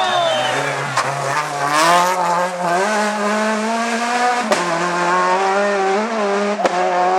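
Rally car engine at high revs, its pitch climbing and levelling off in steps as it pulls through the gears. Three short sharp cracks come about a second in, midway and near the end.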